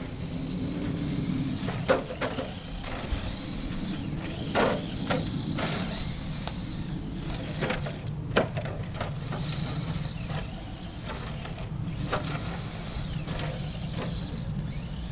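Electric motor and geared drivetrain of an Axial SCX10 RC crawler whining, rising and falling in pitch as the throttle comes on and off, with several sharp knocks as the truck bumps over roots and tumbles.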